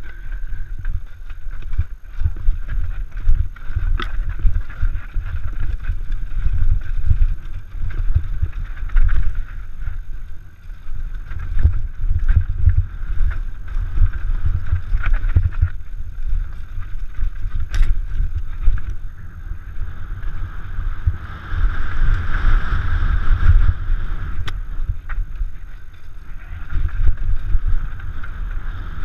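Mountain bike riding fast down a dry dirt singletrack, heard from a helmet-mounted camera: wind buffeting the microphone and the rumble of the tyres over the dirt. Sharp knocks and rattles from the bike come over the bumps.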